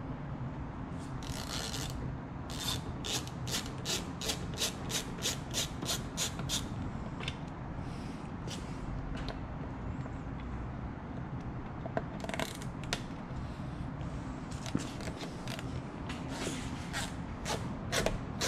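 A ratcheting driver backing out the T15 Torx screws that hold a C5 Corvette taillight: a run of even clicks, about three or four a second, then a few shorter runs near the middle and the end, with rubbing of hand and tool against the lamp.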